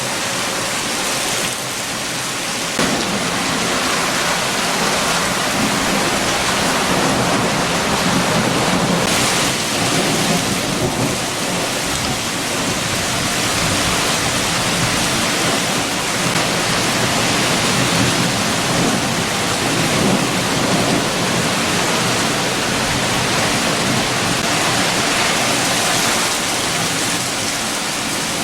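Heavy rain with strong wind: a steady, dense rushing hiss that swells and eases gently, growing a little louder about three seconds in.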